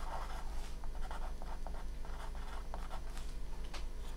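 Pen scratching on paper in a series of short strokes as lines are drawn.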